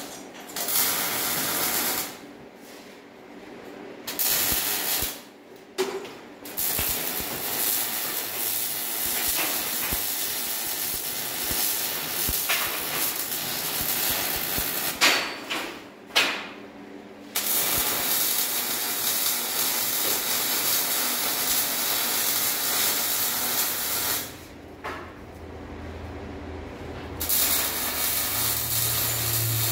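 MIG welding arc crackling and hissing as beads are laid on steel stair stringers. It stops and restarts several times, with short pauses between welds.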